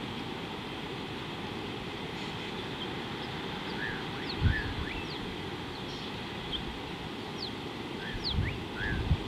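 Birds calling with short high chirps and quick sweeping whistles, many in a row from about two seconds in, over a steady low rumble. Three brief low thumps break in, the loudest about four and a half seconds in and two more near the end.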